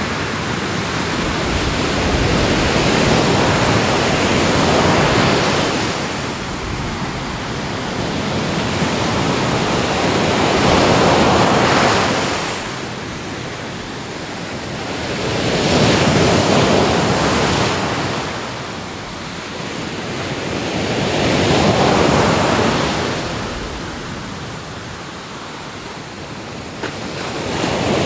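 Ocean waves breaking and washing on a shore, the surf swelling and falling back every five to six seconds.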